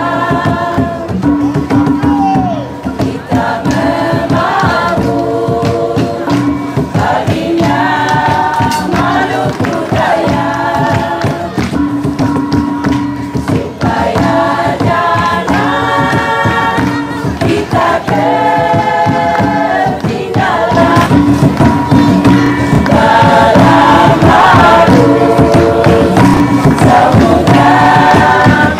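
A choir singing a Moluccan song in phrases over tifa hand drums beating a steady rhythm. The music gets louder about 21 seconds in.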